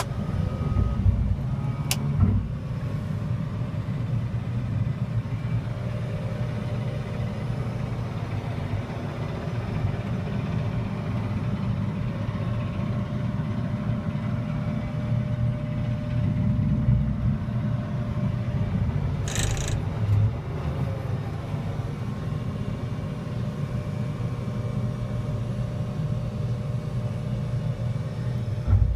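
Caterpillar 950 wheel loader's diesel engine running steadily, heard from inside the cab. A few short knocks sound near the start and end, and a brief hiss comes about two-thirds of the way in.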